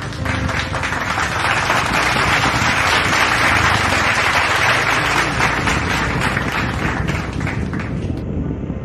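Applause: many hands clapping in a dense, steady patter that starts suddenly and cuts off abruptly about eight seconds in.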